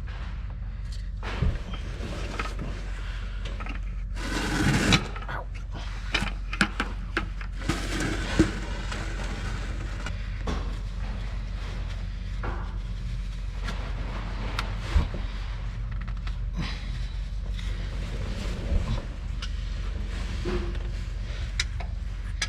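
Scattered knocks, clicks and scrapes of hand tools and parts being handled during a truck oil change, over a steady low hum. A longer, louder scrape about four to five seconds in.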